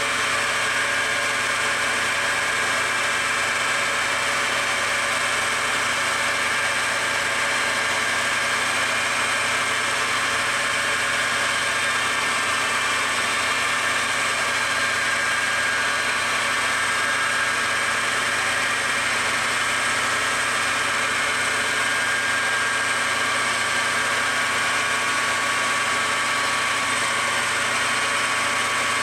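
Enco metal lathe running at about 1550 RPM with a steady whine as the tool turns along an aluminum pulley blank.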